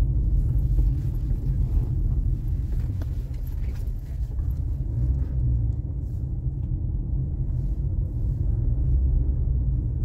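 Steady low rumble of a car driving, the engine and road noise heard from inside.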